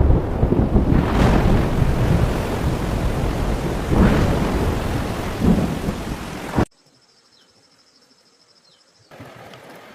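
Thunderstorm: heavy rain with rolling thunder, swelling about a second in and again around four and five and a half seconds. It cuts off abruptly about two-thirds of the way through, leaving only a faint sound.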